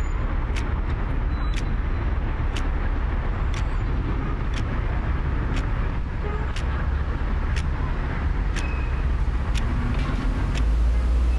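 Wall clock ticking about once a second, sharp single ticks over a steady low background rumble.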